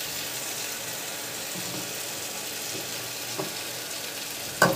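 Oil sizzling steadily in a wok as freshly added, squeezed grated potato fries with the onion-tomato masala. A sharp knock sounds near the end.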